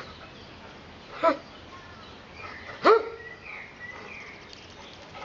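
Dog barking twice: one short bark about a second in and a louder one near three seconds. Faint bird chirps in the background.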